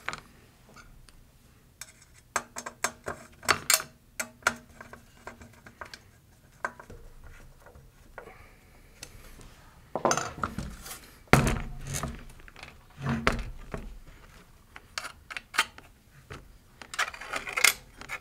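Aluminium robot-chassis parts clinking and clicking as small screws, connector plates and a hex key are handled, in scattered bursts. About halfway through comes a run of heavier knocks as the metal chassis is moved about on the wooden bench.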